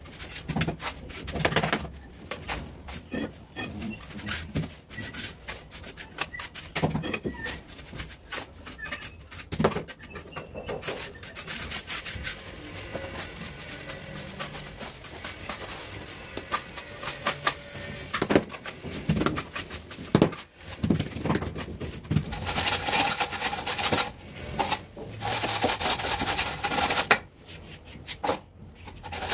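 Steel trowel and hands scraping and spreading a crumbly sand-and-cement mortar bed, a string of short gritty scrapes and clicks. Over the last several seconds, a long straightedge dragged back and forth across the mortar to screed it level gives a denser, continuous rasping scrape.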